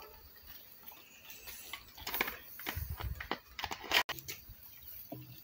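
Scattered light clicks and knocks of plastic bottles and caps being handled while two-stroke fuel mix for a brush cutter is prepared, with one sharp click about four seconds in.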